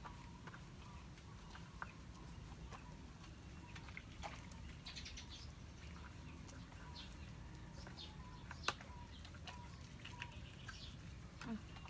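Quiet sounds of a puppy being scrubbed in a tub of water: scattered small wet clicks and splashes, with one sharper click near the end. Faint bird chirps sound in the background.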